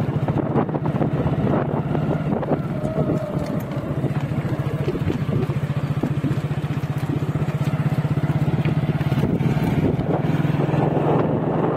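Motorcycle engine running steadily while riding, a low even engine note that eases slightly about three seconds in.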